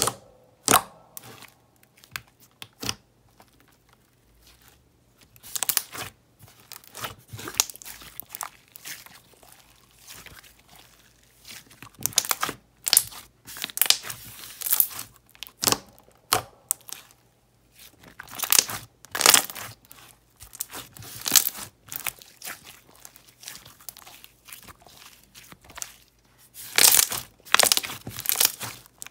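Thick pink jelly slime being poked, squeezed and stretched by hand, giving off irregular sticky clicks and pops in clusters with short quiet gaps; the loudest clusters come around the middle and near the end.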